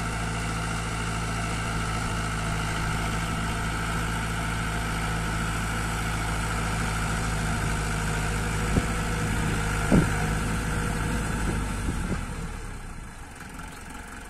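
Diesel tractor engine running steadily while it pulls a mounted plough through long-unworked soil. Two sharp knocks come about a second apart, two-thirds of the way through. The engine sound falls away near the end.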